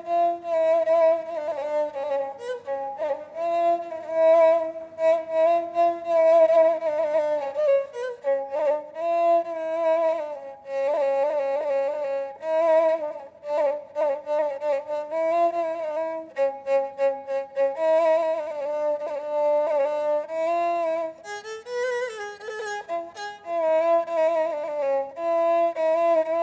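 Egyptian rababa, a spike fiddle with a coconut-shell body, bowed solo: a single ornamented melody with quick pitch wobbles and slides between notes.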